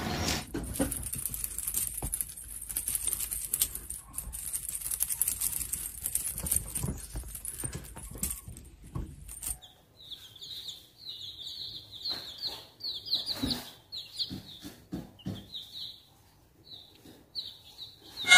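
Young chicks peeping: many short, high chirps repeating rapidly and overlapping, starting about halfway through. Before that there are only scattered clicks and scuffling noises.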